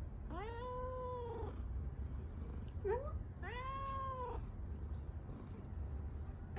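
A tabby cat meowing softly: two drawn-out meows, each rising then falling in pitch. Between them comes a short upward-sliding chirp, which is the loudest moment.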